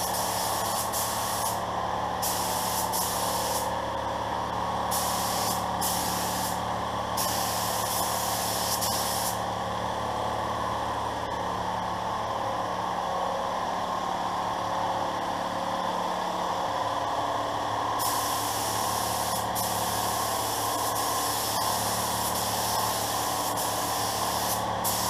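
Pro-Tek 4000 HVLP spray gun hissing as it lays base coat at about 28.5 psi. The hiss comes in short trigger-pulled passes at first, stops for a long pause mid-way, then runs unbroken through the last several seconds, over a steady low hum.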